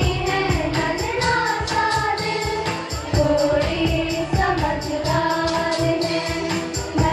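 Song with singing over a steady beat.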